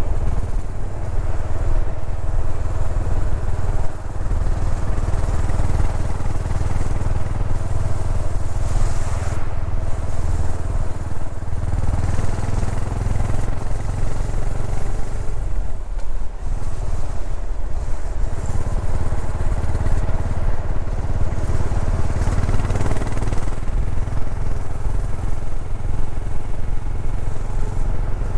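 Yamaha SR400's air-cooled single-cylinder engine running steadily under way, heard from the rider's seat. The engine sound drops away briefly about sixteen seconds in, then comes back.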